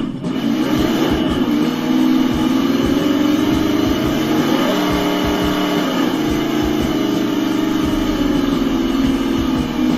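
Electric motor and gear drivetrain of a 1/10-scale RC ATV running with its balloon-tyred wheels spinning free off the ground, a steady whine whose pitch shifts up and down with the throttle midway through.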